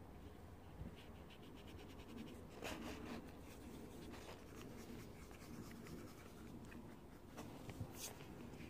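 Faint scratching and light tapping of a painting tool on watercolour paper, with a quick run of small ticks about three seconds in.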